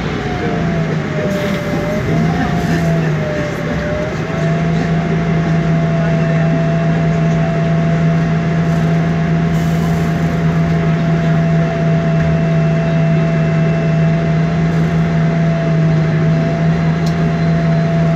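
Inside a MAN Lion's Classic city bus standing still, its MAN E2876 CNG straight-six idling with a steady low hum under a steady high whine. The whine wavers in pitch for the first few seconds, then holds level.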